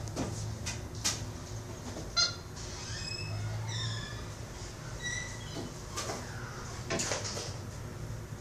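Capuchin monkey giving short high-pitched squeals and falling chirps while play-fighting, with a few sharp knocks and scuffles between the calls.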